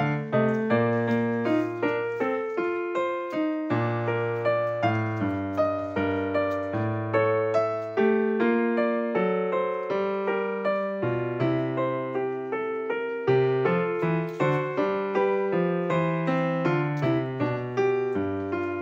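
Background piano music: a continuous run of struck notes, each fading after it is played.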